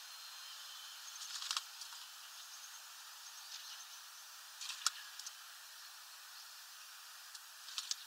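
Great tit bathing in a shallow plastic water dish: three short bursts of splashing and flicking, about a second and a half in, near the middle, and near the end, over a steady background hiss.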